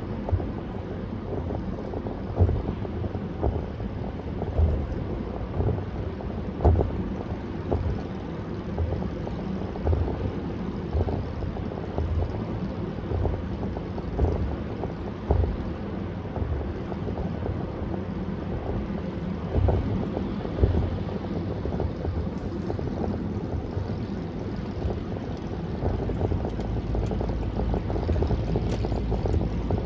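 Car driving at parkway speed: steady road and wind noise with frequent short, low thumps. The low rumble grows louder near the end.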